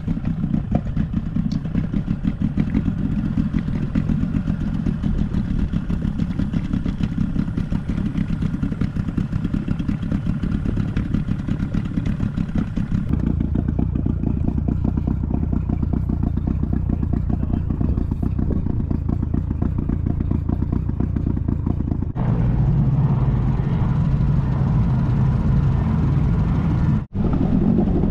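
Small outboard motor on an inflatable dinghy running steadily under way. Its sound shifts abruptly about 13 and 22 seconds in, and it cuts out for a moment near the end.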